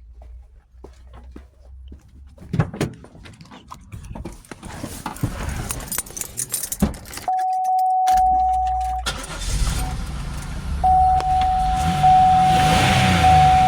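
Keys jingling and clicks, then the 2004 Buick LeSabre's 3.8 L 3800 Series II V6 running, getting louder from about nine seconds in, with a steady electronic warning chime tone over it. The engine is running with its misfire cured by a new ignition control module.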